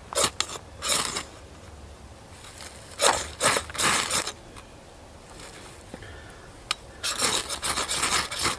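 Ferrocerium rod scraped with a knife blade to throw sparks onto birch bark tinder: short rasping strokes, a couple near the start, three or four around three seconds in, and a quick run of strokes about seven seconds in.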